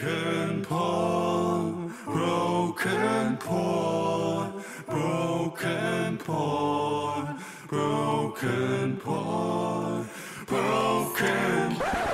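Unaccompanied singing voice: a wordless sung melody in short phrases, with a rising glide near the end.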